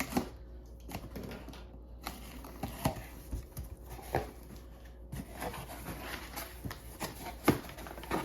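Cardboard box being opened by hand: an irregular run of taps, clicks and rustles of cardboard and packaging, with a few sharper knocks.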